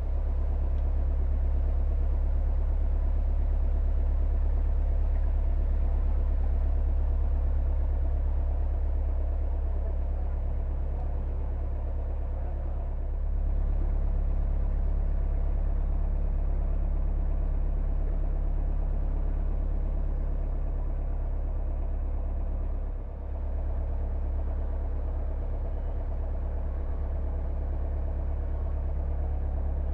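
Narrowboat's diesel engine running steadily at slow cruising speed, a deep steady sound. It picks up slightly about 13 seconds in and dips briefly around 23 seconds.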